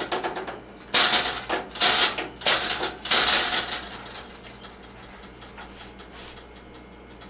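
A metal spoon clattering against a metal baking sheet and the mixing bowl as cookie dough is shaken off it, in several short sharp rattles during the first three or four seconds.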